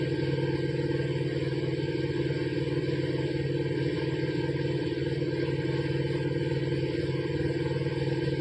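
Sanden air-conditioning compressor driven by a 1 kW BLDC electric motor, running steadily at raised speed.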